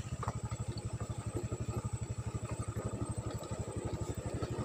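Small motorcycle engine running steadily, a rapid, even putter.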